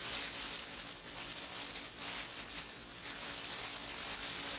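Solder and its flux sizzling with a steady hiss under a soldering iron tip as a thin copper wire is soldered onto a small DC motor's terminal.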